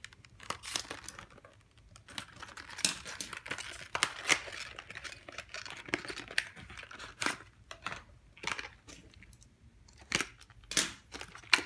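Plastic shrink-wrap slit and torn off a cardboard trading-card deck box, then the box opened and a hard plastic deck case handled: crinkling and tearing with many sharp clicks and taps, the rustling densest in the first half.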